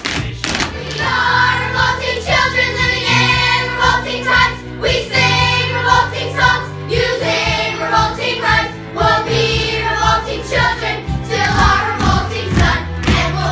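A group of children singing together in chorus over instrumental accompaniment with a steady bass line.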